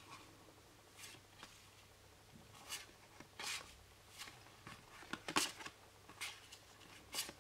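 Oracle cards being slid one over another by hand as a deck is leafed through: a series of short, faint paper swishes, roughly one a second, the strongest near the end.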